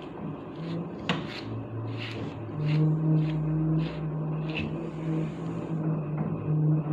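Grooming brush strokes raking through a chow chow's thick coat, one short scratchy stroke about every half second to a second, thinning out after about four seconds. From about two and a half seconds in, a steady low hum runs underneath.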